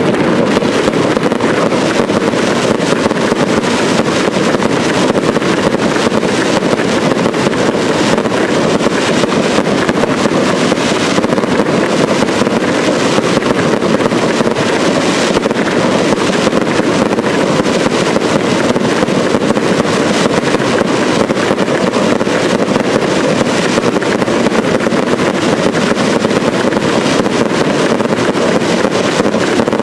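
Fireworks display: a dense, unbroken crackle of many small bursting stars, steady in loudness, with no single big bang standing out.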